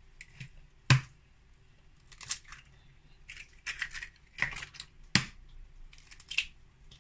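Eggs being cracked against the rim of a plastic mixing bowl and their shells handled: a sharp knock about a second in and another a little after five seconds, with short crackling and rustling sounds in between.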